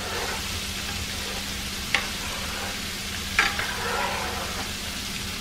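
Shrimp deep-frying in hot oil, a steady sizzle, while a slotted metal spoon stirs them. Two sharp clicks, about two seconds in and again about a second and a half later, as the spoon knocks against the pan.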